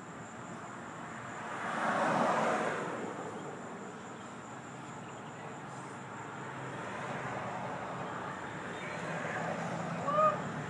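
A vehicle passing, its noise swelling and fading over about two seconds near the start, over a steady chirring of insects. Near the end there is a short pitched call.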